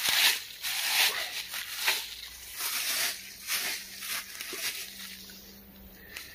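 Footsteps crunching through dry leaf litter and undergrowth, an uneven series of rustling steps that tails off about five seconds in.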